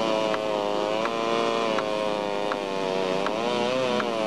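An engine running steadily, its pitch wavering slightly up and down, with a faint regular tick about every three-quarters of a second.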